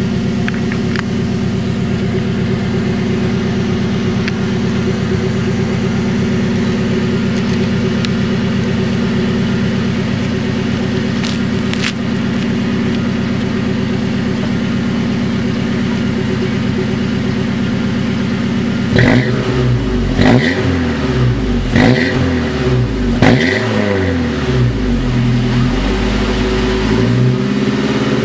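Toyota 4Runner 2.7L four-cylinder engine breathing through a Flowmaster 40 Series muffler exhaust: it idles steadily, then about two-thirds of the way in it is revved several times in quick blips, each rising and falling.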